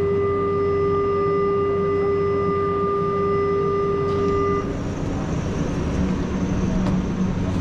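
Door-closing warning tone of a Guadalajara light rail train: one steady, held electronic tone that stops about four and a half seconds in, over the low rumble of the train.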